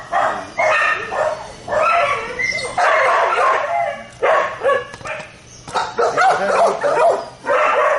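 Dog barking in a rapid series of short barks, with one longer run of barking in the middle.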